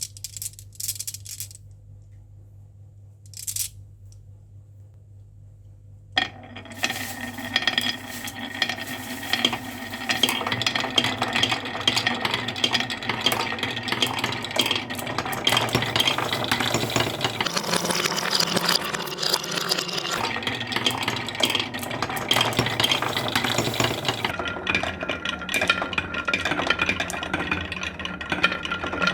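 Many marbles rolling and clattering down a marble run: a few single clicks at first, then from about six seconds in a dense, continuous clicking and clinking of marbles knocking against the track and each other.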